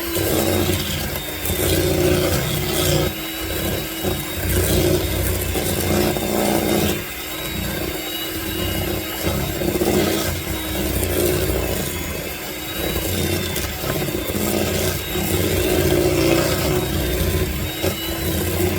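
Electric hand mixer running steadily, its beaters working cake ingredients until creamy. The churning of the beaters in the bowl swells and fades irregularly over the steady motor whine.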